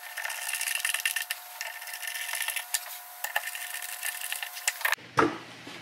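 A hand screwdriver driving a screw through a 3D-printed plastic anvil into a workbench: scraping and creaking with many small clicks as the screw turns. It cuts off suddenly about five seconds in.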